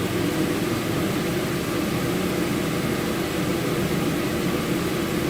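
Akpo WK-7 kitchen range hood's fan motor running steadily on its highest, fourth speed, a continuous rush of air with a low hum.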